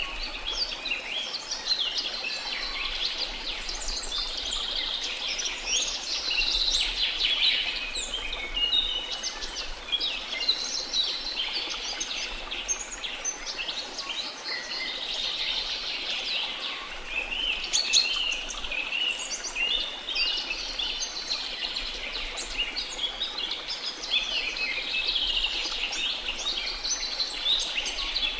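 A chorus of many birds chirping and trilling densely and continuously over a steady rush of falling water from a waterfall.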